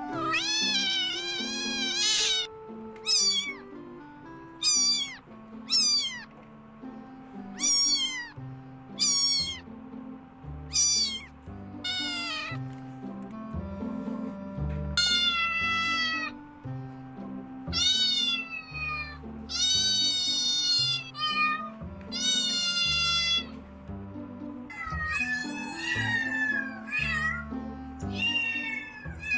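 A kitten mewing over and over: high-pitched calls that fall in pitch at the end, short ones at first and longer ones later, over background music.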